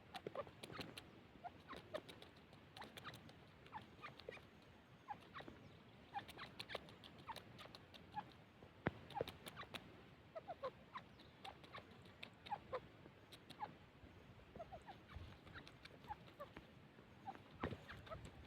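Grey francolins making faint, irregular short chirps and soft clucks, scattered with sharp clicks.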